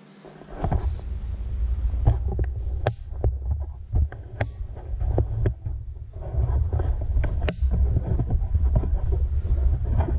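Handling noise on the action camera's microphone: a low, uneven rumbling with many sharp knocks and clicks as the camera is moved and repositioned.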